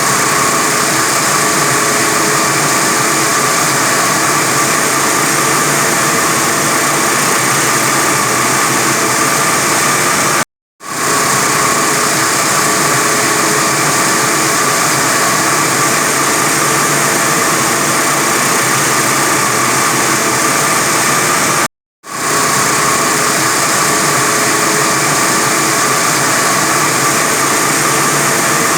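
45 kW diamond wire saw running steadily through reinforced concrete: a loud, even machine noise with a high whine. The sound cuts out completely twice, about a third and two-thirds of the way through, and each time swells back within a moment.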